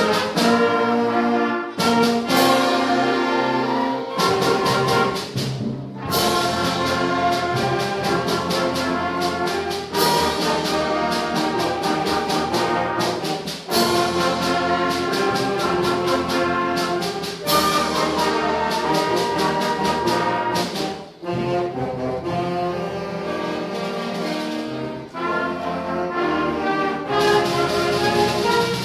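Middle-school concert band of woodwinds and brass playing a piece, the brass to the fore, in phrases of held chords with short breaks between them.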